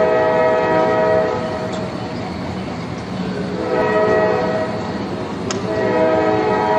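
Train horn sounding a chord of several steady notes in three blasts, over the running noise of the train. The first blast stops a little over a second in, the second comes near four seconds, and the third starts near six seconds and is still sounding at the end.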